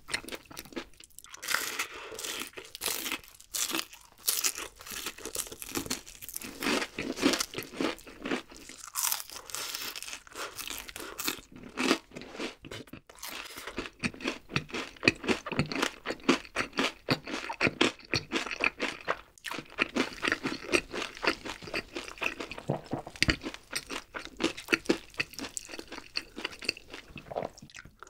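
Close-miked chewing of crispy fried chicken: a dense run of crunches from the crackling coating, continuing throughout.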